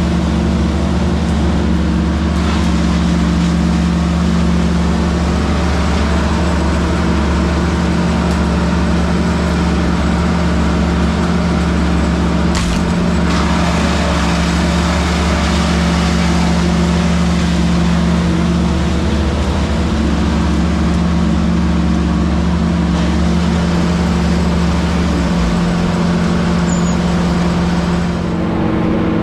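Bobcat E60 compact excavator's diesel engine running steadily at working speed, with a shift in its low drone near the end.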